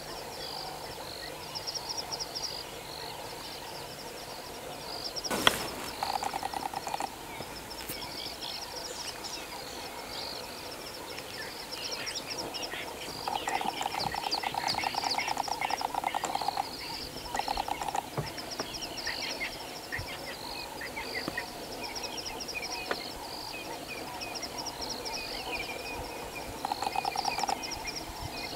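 Bush ambience of insects and birds: high insect trills repeating in short bursts throughout, a lower, rapid pulsing trill that comes in several bursts (the longest about three seconds), and scattered bird chirps. A single sharp click about five seconds in.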